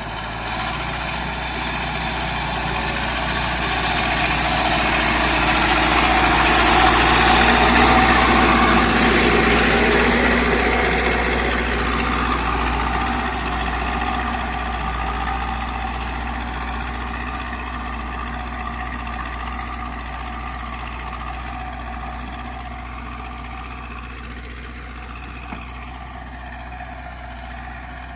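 Zetor 5745 tractor's diesel engine running steadily. It grows louder over the first several seconds, then slowly fades.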